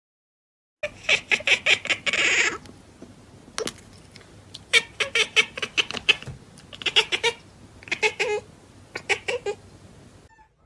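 Domestic tabby-and-white cat chattering: bouts of rapid clicking chirps, five or six runs of about a second or less each. The sound starts about a second in and cuts off suddenly near the end.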